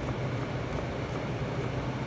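Chef's knife chopping cucumber on a plastic cutting board: light, regular taps about three times a second, over a steady low machine hum.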